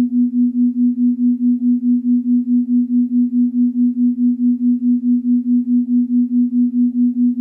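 A single synthesized pure tone, fairly low in pitch, pulsing evenly about four to five times a second: a meditation tone.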